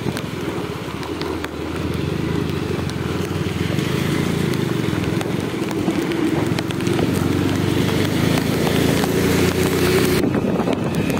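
Motorbike engine running on the move, heard from the pillion seat with wind rush on the microphone; it grows a little louder past the middle.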